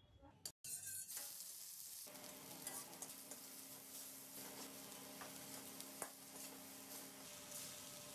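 Vegetables and noodles stir-frying in a hot metal wok: a steady sizzle with a metal spatula scraping and clicking against the pan. It starts about half a second in, after a brief moment of silence.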